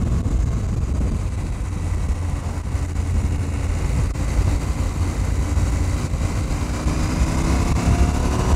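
KTM 790 Adventure motorcycle's parallel-twin engine running on the move, under a steady rush of wind and road noise. Near the end the engine note rises as the revs climb.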